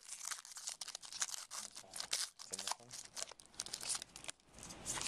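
Trading-card pack wrapper being crinkled and torn open, a dense run of irregular crackles with card handling.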